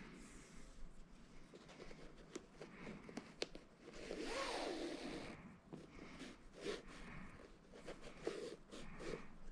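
Shoelace being pulled through a sneaker's eyelets and the shoe handled: rustling with small clicks, and a longer swish of lace about four seconds in.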